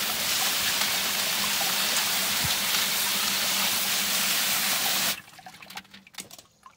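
Garden hose spray nozzle spraying water onto ore gravel in a wire-mesh sifting screen, washing the dirt off the stones: a steady hiss of spray that cuts off suddenly about five seconds in. After it, a few light clicks and rattles as the wet stones are moved on the screen.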